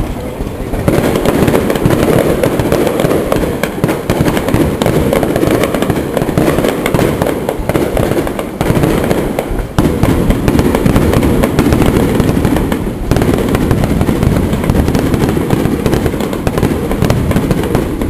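Fireworks going off in a rapid, unbroken barrage of bangs and crackles, starting about a second in.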